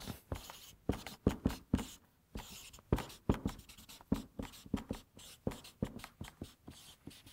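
Marker pen writing on flip-chart paper, a line of capital letters drawn in many short, irregular strokes.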